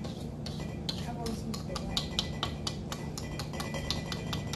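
Wire whisk clicking and scraping against a stainless steel mixing bowl while dry flour mixture is whisked, about four or five quick taps a second, over a steady low hum.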